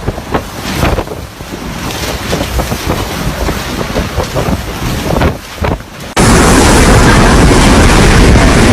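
Typhoon wind and rain in gusts with short clattering hits. About six seconds in, it cuts abruptly to much louder, steady wind noise buffeting the microphone.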